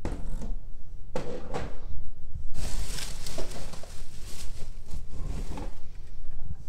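Bubble wrap rustling and crinkling as it is pushed aside inside a cardboard box, in several short bouts, the longest about three seconds in.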